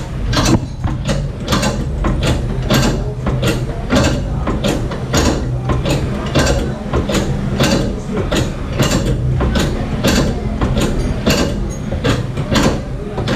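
Quick, regular mechanical clicking or knocking, about three to four strikes a second, over a steady low hum of running machinery.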